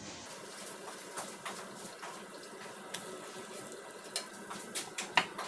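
Turon frying in hot oil in a pan: a faint, steady sizzle with scattered crackles. A few light clinks of a utensil on dishes come near the end.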